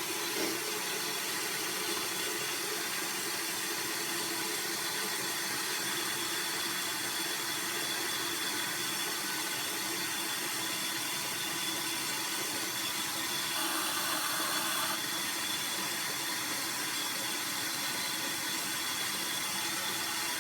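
Bathroom tap running into a sink, a steady hiss of water with no break.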